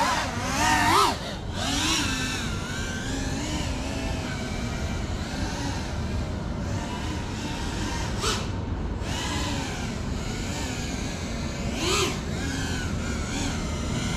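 GEPRC CineLog 35 cinewhoop FPV drone flying: its motors and propellers whine, the pitch swooping up and down constantly with the throttle, with short louder punches about a second in, at about eight seconds and near the end.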